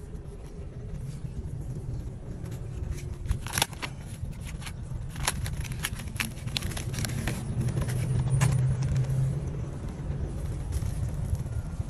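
Hands working gravelly soil and handling plant root balls: scattered crunching and crackling, thickest in the middle, over a steady low rumble.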